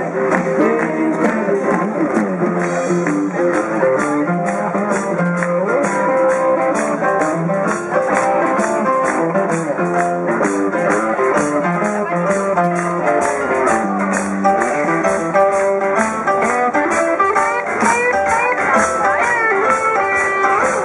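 Live band music: electric guitar playing over drums, with a steady cymbal beat coming in a couple of seconds in.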